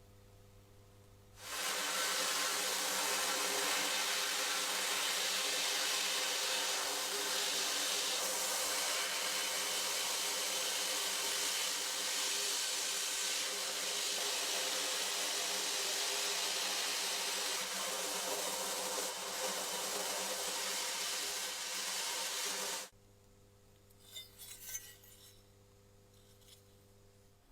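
A tool abrading the metal of a vintage tin toy locomotive in rust removal: a steady scouring hiss that starts about a second and a half in, holds for about twenty seconds and cuts off abruptly. A few faint light clinks follow.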